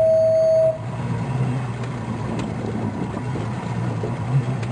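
A loud, steady electronic beep cuts off under a second in, leaving a boat's motor running with a low, steady hum.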